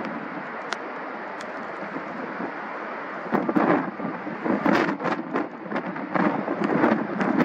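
Gusty wind buffeting the microphone in irregular loud bursts over a steady background roar, starting about three seconds in.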